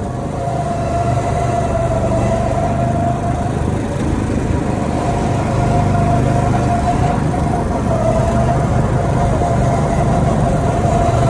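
Go-kart motor running steadily while the kart is driven: a continuous drone with a steady higher whine over it.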